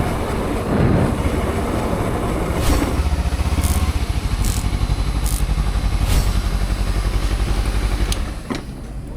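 Honda CBR250RR parallel-twin engine running through an aftermarket Akrapovic-style exhaust, with an even pulsing beat. It drops away about eight seconds in.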